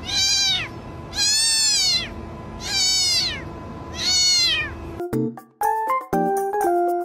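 A domestic cat meowing four times, long high meows that each rise and then fall in pitch, about a second and a half apart. About five seconds in the meowing stops and keyboard music of short piano-like notes begins.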